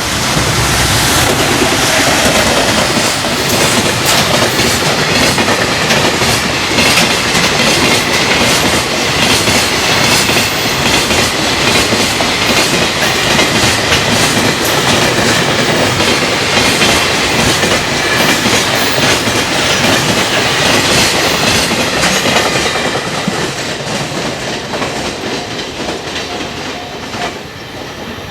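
Freight train passing at speed over rail joints: a rapid, continuous clatter of wheels striking the joints, which fades away over the last few seconds as the train draws off.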